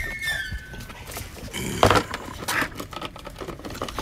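Rustling and clicking of something being handled and fitted into place, with a sharp knock a little under two seconds in. A short high-pitched sound falling in pitch opens it.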